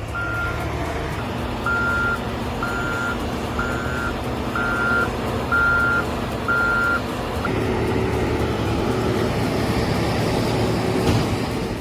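A heavy construction machine's engine running, with a backup alarm beeping about once a second that stops about seven seconds in; the alarm means the machine is moving in reverse.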